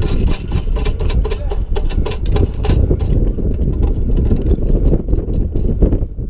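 Metal clicks and clinks of a lineman's climbing harness and pole-strap hardware as gloved hands work the strap's buckle and snaps. They come thick and fast for about the first three seconds, then sparser, over a steady low rumble.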